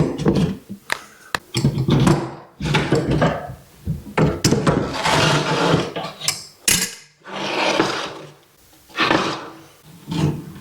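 Baseboard trim being pried off a wall with a wedge-type baseboard removal tool: a run of wooden knocks and clunks with stretches of scraping.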